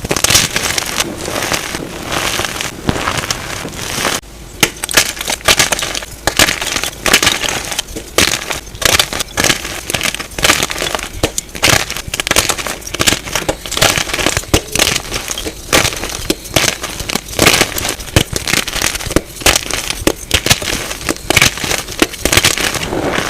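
Blocks of gym chalk being crushed and crumbled, a dense run of dry crunches and crackles sped up to double speed.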